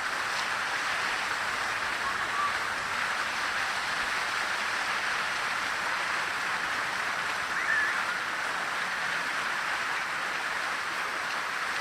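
Fountain water splashing steadily into its basin: a constant hiss of falling water.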